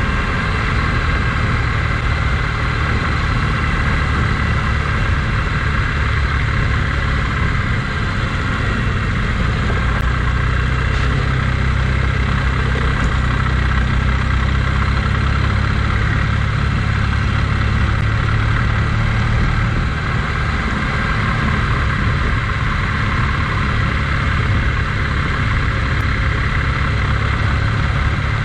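A vehicle's engine running steadily under a constant low rumble while the vehicle travels along a road.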